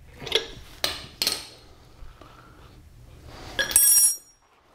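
Hand wrench clinking against the swing-axle spring plate bolts of a VW dune buggy as they are snugged up: three sharp metal clinks about half a second apart, then a louder steel clang that rings briefly near the end.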